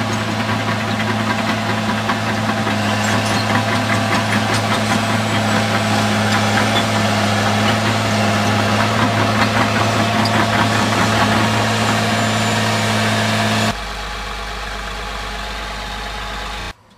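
Caterpillar crawler bulldozer's diesel engine running steadily with a dense rattle. About three seconds before the end it drops suddenly to a quieter low hum, which cuts off just before the end.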